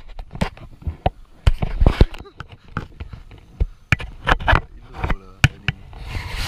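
Irregular close knocks, clicks and rustles of hands, clothing and gear moving against a body-mounted camera while a small hooked fish is handled on rod and line.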